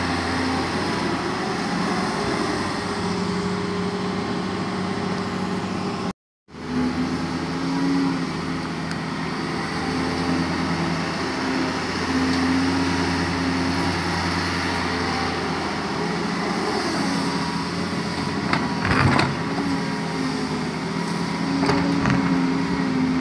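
Doosan 140W wheeled excavator's diesel engine running steadily under hydraulic load while it digs and swings buckets of soil. The sound drops out briefly about six seconds in, and a couple of short knocks come near the end.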